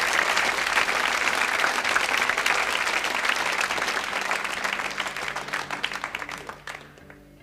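Studio audience applauding, a dense patter of clapping that dies away over the last couple of seconds.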